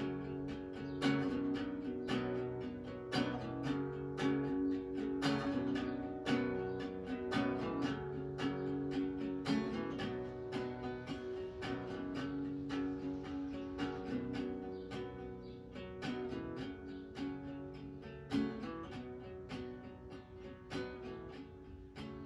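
Acoustic guitar strummed in a steady rhythm of chords, an instrumental passage with no singing, growing a little softer toward the end.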